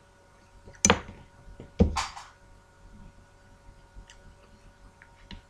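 Tableware being handled while sushi is dressed with wasabi: two sharp knocks about a second apart, the second followed by a short hiss, then a few faint ticks.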